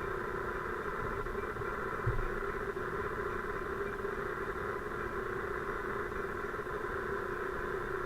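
A steady mechanical hum, with one low thump about two seconds in.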